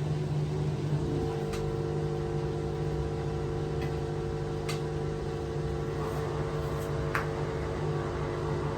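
Steady electrical hum from a switched-on LG top-load washing machine, with a second, higher tone joining about a second in and a few faint clicks.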